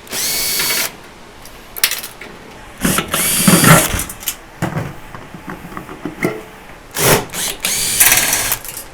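Power drill run in four short bursts, its motor whine rising as it spins up each time, backing screws out of a microwave's casing and parts during teardown.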